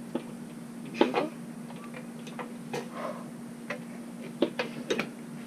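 Hand tools clinking and knocking against metal fittings in irregular, scattered clicks while an air compressor's pressure switch is being removed, the loudest knock about a second in. A faint steady hum sits underneath.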